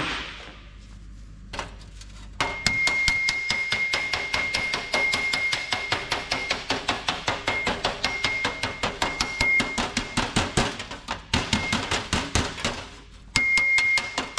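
A body hammer tapping a steel car door panel in a fast, steady run of light blows, several a second, with a high ring from the sheet and two brief pauses. This is planishing out the last of the oil-canning in the panel after heat shrinking.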